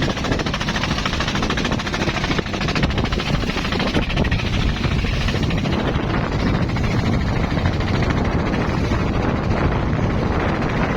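Boat engine running steadily at speed, a loud continuous drone with a fast, even pulsing.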